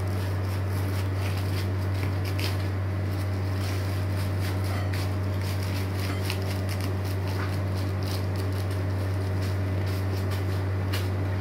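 A steady low hum, with faint, scattered crinkles of aluminium foil as hands press the foil seal around the rim of a large aluminium cooking pot.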